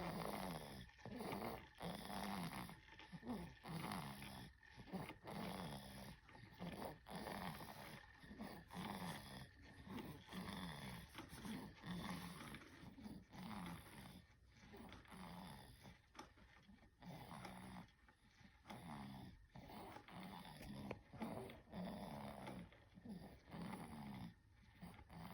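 A sleeping baby snoring faintly: quick, regular breaths, about one a second, each with a low, pitched snore.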